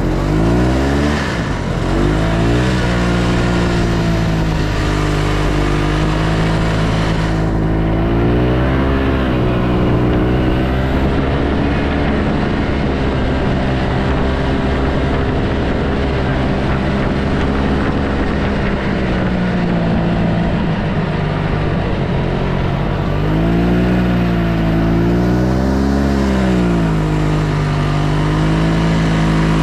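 Yamaha Bravo snowmobile's two-stroke engine running under way. Its pitch climbs about a second in, dips and rises again around eight to ten seconds and once more about three-quarters of the way through, and holds steady between these throttle changes.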